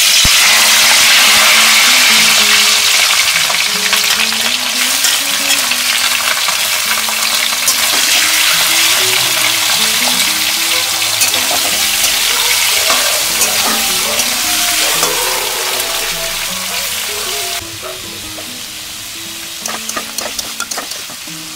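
Prawns dropped into hot mustard oil in a steel kadai, sizzling loudly the moment they hit the oil as they fry and are stirred with a spatula. The sizzle settles a little quieter near the end, with a few sharp clicks of the spatula.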